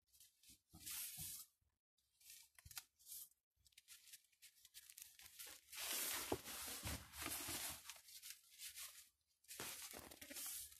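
A bundle of long Siberian iris leaves rustling as it is handled and twisted by hand, in short irregular bursts with a longer run past the middle.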